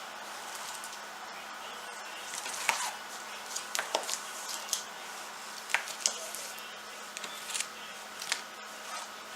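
Scattered squishy rustles and short scrapes of hands working a wet silicone mix into cotton pant fabric, over a faint steady hum.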